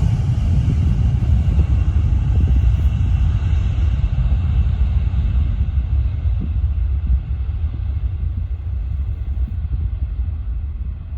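Jet airliner engines rumbling as the aircraft moves away. The noise slowly weakens, and its high, hissing part fades out first.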